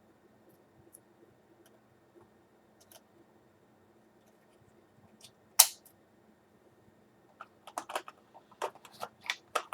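Small clicks and taps of a DDR3 laptop memory stick being handled and fitted into its slot, with one sharp click about halfway through and a quick run of clicks near the end.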